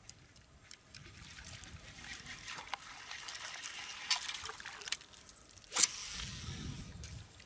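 Water splashing and trickling, growing over a few seconds with scattered small clicks, then a single sharp crack near the end followed by a brief low rumble.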